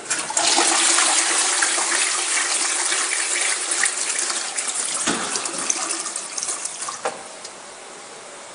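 Tavistock toilet flushing: water rushes into the bowl and swirls away. After about seven seconds the rush dies back to a low hiss.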